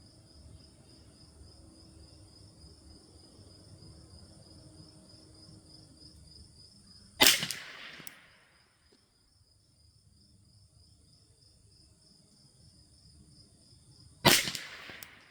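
Two shots from a Thompson Center TCR .22 LR rifle, about seven seconds apart, each a sharp report with a brief tail. A steady high insect trill runs underneath.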